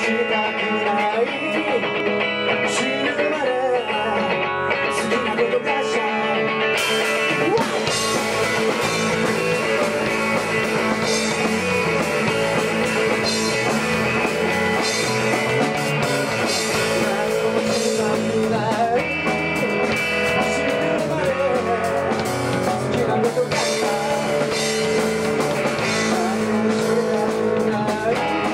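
Live rock band: an electric guitar plays alone at first, then drums with cymbals and the rest of the band come in about seven seconds in and play on at a steady level.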